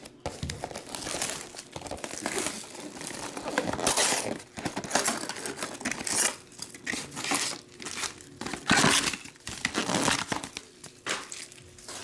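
A cardboard box of trading cards being torn open by hand. Repeated bursts of cardboard tearing and plastic wrap crinkling, with small taps as the foil packs are pulled out and stacked.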